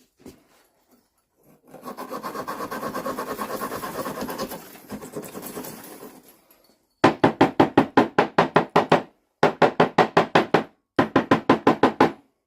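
Hand wire brush scrubbing the steel head of a tack hammer to clean it. A few seconds of fast, lighter scrubbing, then after a short pause louder quick back-and-forth strokes, about five a second, in three runs with brief breaks.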